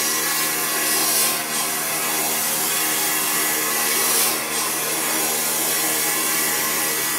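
Dental amalgamator shaking an amalgam capsule at high speed to mix powdered alloy with liquid mercury. It runs with a steady, harsh mechanical buzz and hum.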